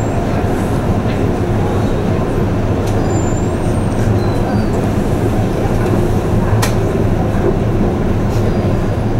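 Steady low drone of the icebreaker sightseeing ship Aurora running through drift ice, heard inside the cabin, with a constant engine hum. A single sharp knock about six and a half seconds in.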